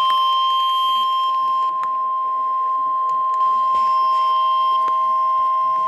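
Emergency Alert System warning alarm tone played over a radio receiver: one long, loud, steady single-pitched tone, with a fainter lower steady whistle beneath it.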